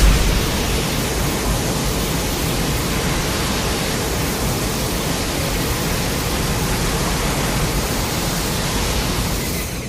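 Sound effect of a steady, even rush of noise across all pitches, opening with a low boom and holding level throughout.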